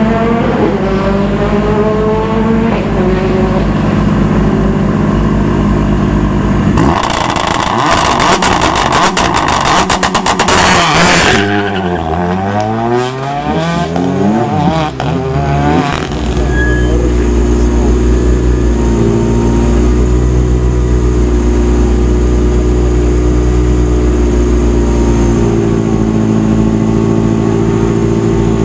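Renault Clio rally car's engine held at revs on the start line, then launching hard about seven seconds in and accelerating away, its pitch climbing and dropping through the gear changes before fading at around sixteen seconds. From then on, another rally car's engine idles steadily close by.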